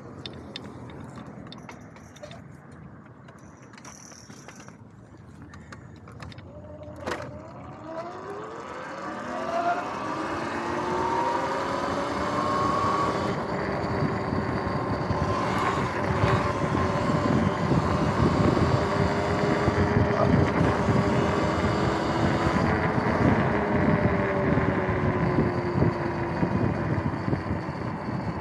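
Sur-Ron X electric dirt bike pulling away and speeding up: its motor whine rises in pitch and then holds fairly steady at cruising speed. Wind and tyre noise grow louder as speed builds, and a sharp click comes just before it pulls away.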